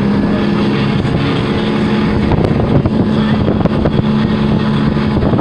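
Outboard motor running steadily at speed, pushing a small motorboat, with water rushing past the hull and wind on the microphone. The engine's hum wavers about halfway through, where a few thumps are heard.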